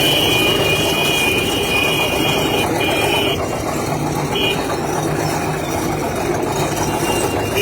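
A vehicle engine running steadily under street noise. A high steady two-note tone sounds over it for the first few seconds, then twice briefly.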